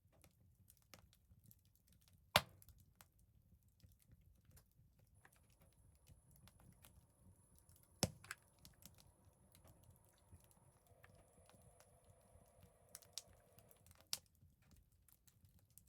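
Faint, scattered clicks and small snaps, with two louder sharp snaps about two and eight seconds in.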